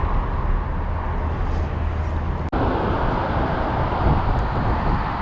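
Steady rushing of a shallow freestone river's current around the wading angler. The sound cuts out for an instant about halfway through.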